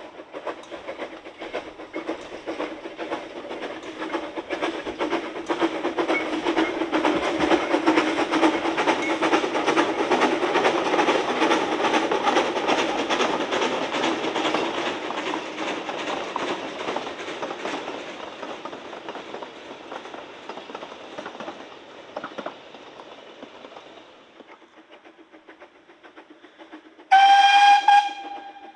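Narrow-gauge steam train passing: a rhythmic stream of exhaust beats and wheel clatter builds, peaks and dies away as the coaches go by. Near the end a steam whistle gives one short, loud blast.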